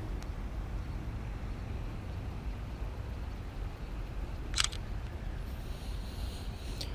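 A smartphone camera's shutter sound: one short, sharp click about four and a half seconds in, over a steady low rumble.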